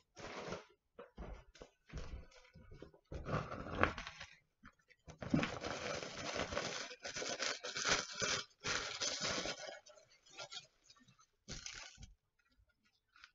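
Plastic bag of sand rustling and crinkling in irregular bursts as it is handled and sand is poured between the stones of a ceramic planter, busiest in the middle.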